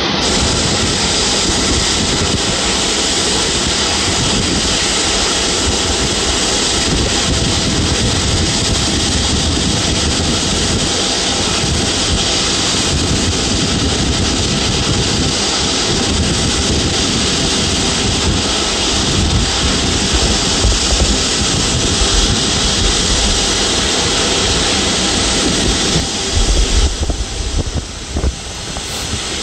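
Steady, loud jet engine noise with a strong high hiss over a low rumble; near the end the rumble turns choppy and gusty.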